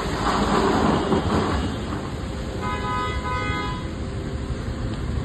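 A horn sounds once for about a second, midway, over a steady rumbling noise like traffic.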